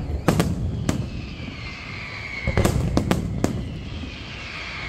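Aerial fireworks display: shells bursting with sharp bangs, two early and a quick cluster of four near the middle. A high hiss that slowly drops in pitch runs between the bangs.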